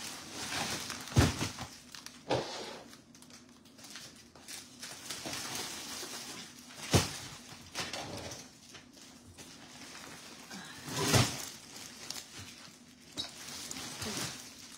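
Heavy plastic-wrapped shipping bags being hauled off a luggage cart and dropped on the floor: several heavy thumps, the loudest about a second in, at seven seconds and near eleven seconds, with plastic film rustling and crinkling between them.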